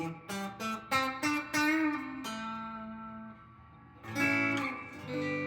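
Clean electric guitar from a Telecaster's bridge humbucker wired in parallel: a quick run of picked single notes, one note held and fading, then two chords struck near the end that ring on. Parallel wiring cleans the tone up a little.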